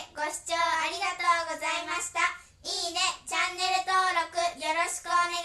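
A high, child-like voice singing a short tune in several phrases with brief breaks between them.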